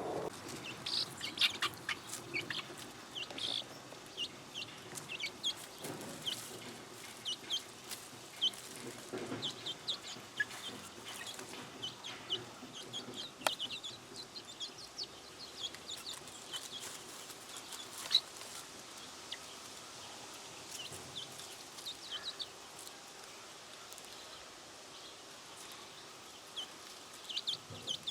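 Chickens clucking and calling, with many short high calls scattered throughout and a couple of sharp clicks.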